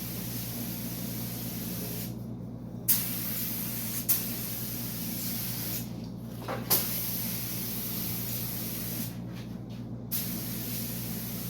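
Air spray gun spraying primer: a steady hiss in long passes, stopping three times as the trigger is let off and starting again with a sharp burst of air. A steady low hum runs underneath.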